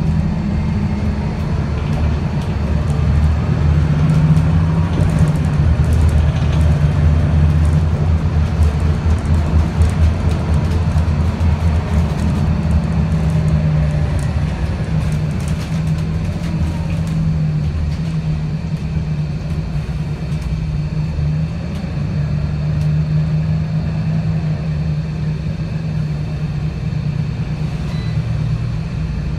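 Scania L94UB CNG city bus heard from inside while driving: the gas engine and ZF 5HP502 five-speed automatic drivetrain run with a continuous low drone. It grows louder for several seconds in the first half and then eases a little, with light rattles from the bus body. The bus's ZF gearbox is slipping.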